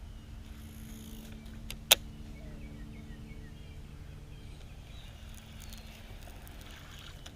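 Steady low hum of a bass boat's electric trolling motor, with one sharp click about two seconds in.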